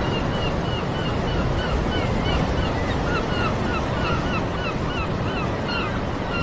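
Steady rush of sea surf against a basalt sea cliff, with a colony of seabirds giving many short chirping calls, about two or three a second.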